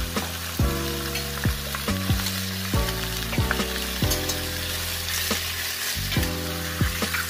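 Raw chicken pieces sizzling in hot oil in a stainless steel pot, stirred with a metal spoon that clinks against the pot now and then. Background music with a steady beat plays under it.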